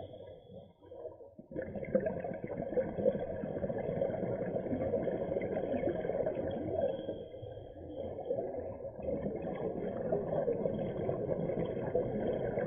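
Muffled, steady underwater rumble with gurgling, as heard through an action camera's waterproof housing on a scuba dive. It dips briefly in the first second and a half, then runs on.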